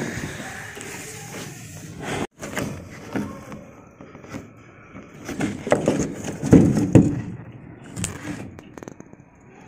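Irregular handling noise on a plastic washing machine tub: knocks, scrapes and rustling, with a cluster of heavier thuds a little past the middle.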